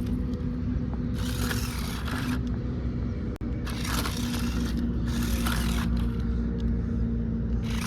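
Electric motor and gearbox of a remote-control car whining steadily, with a rasping noise that swells and fades about once a second.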